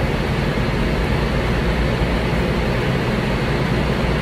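Steady rushing background noise with a low hum under it, unchanging throughout.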